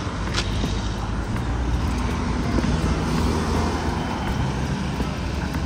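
Steady vehicle and road-traffic noise: a low rumble with a hiss above it, and a brief tick about half a second in.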